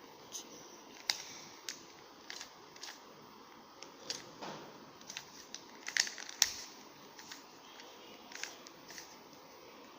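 Rubik's cube being turned by hand: irregular plastic clicks and clacks as its layers are twisted, the loudest a quick cluster about six seconds in.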